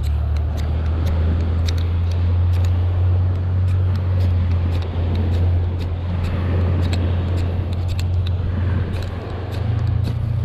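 Wind buffeting the microphone with a steady low rumble, over many short, sharp scrapes of a steel striker run down a ferro rod to throw sparks onto a fire starter.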